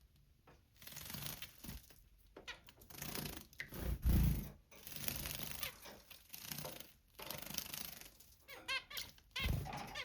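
Zebra finch splashing and fluttering in a water bath: repeated bursts of splashing, with two low thumps, about four and nine and a half seconds in. A quick run of high chirps comes just before the second thump.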